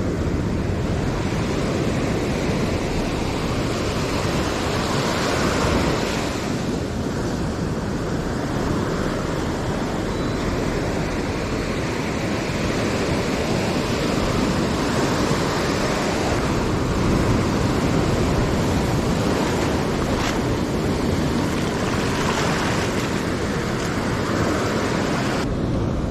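Ocean surf breaking and washing up a sand beach, a steady rushing that swells and eases every several seconds, with wind buffeting the microphone.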